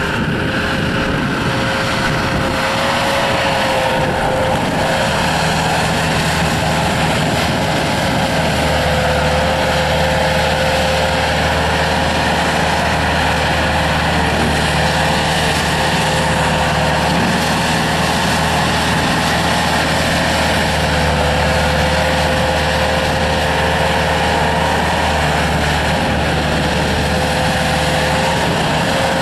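Bobcat S300 skid steer loader's diesel engine running steadily, with a steady high whine over the engine note.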